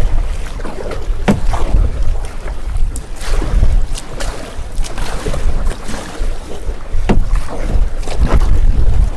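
Canoe paddles stroking through the water and knocking against the plastic hull, a sharp knock or splash every second or two, over a steady wind rumble on the microphone.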